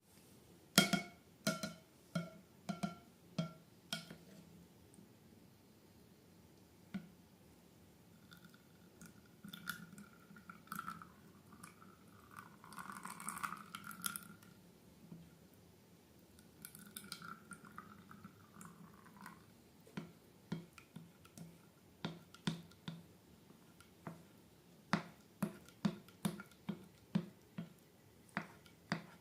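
Slime being squished and worked by hand: runs of short sticky clicks and pops, with a longer wet, pouring stretch in the middle.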